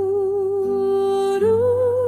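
Music: a wordless sung note held with gentle vibrato over a soft, low sustained accompaniment, stepping up to a higher held note about halfway through.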